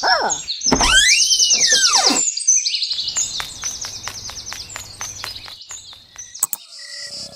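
Birds chirping, with several sweeping whistled calls in the first two seconds and quick repeated high chirps that thin out later.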